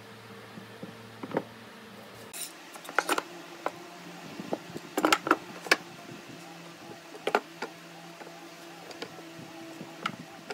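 Pipe clamps being handled and set around a wooden frame: a string of sharp metallic clicks and knocks as the clamp jaws slide along the steel pipes and catch, and as the pipes are set down on the wooden bench. The clicks come thickest about five seconds in.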